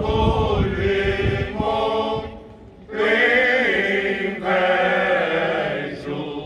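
Male choir singing Cante Alentejano, the unaccompanied Portuguese polyphonic folk song: slow, drawn-out phrases in several voices. There is a short break about two and a half seconds in, then a new phrase that tails off near the end.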